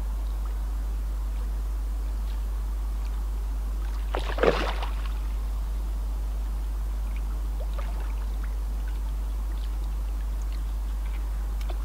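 A single short splash in the shallow water about four and a half seconds in, over a steady low rumble, while a hooked carp is played close to the landing net. A few faint ticks.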